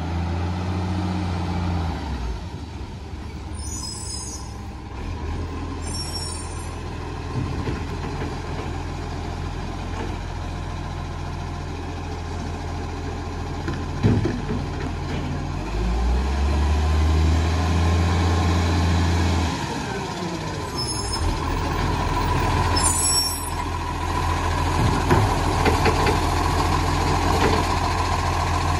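Iveco garbage truck's diesel engine running as it creeps up to the bins, with four short hisses of air brakes being applied and released, two a few seconds in and two past the middle. The engine runs louder for a few seconds in the middle, and there is a single knock shortly before.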